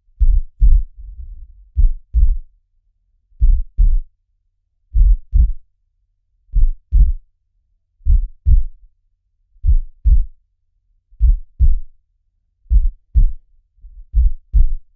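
Heartbeat: slow, steady lub-dub double thumps, one pair about every second and a half.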